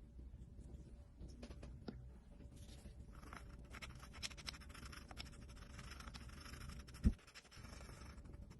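Faint scratching and light clicks of small hand tools working on a wristwatch, with one dull thump about seven seconds in.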